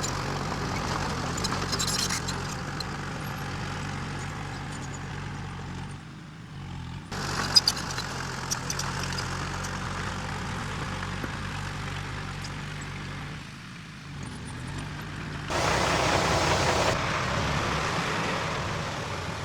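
Diesel engine of heavy earthmoving machinery running steadily. There is a sharp clank about seven and a half seconds in, and a louder stretch of engine noise near the end.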